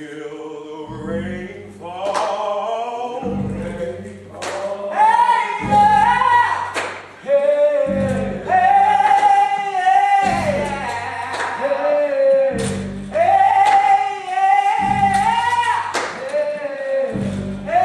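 A song sung in gospel style, a lead voice holding long notes over band accompaniment, with a low bass note struck about every two seconds.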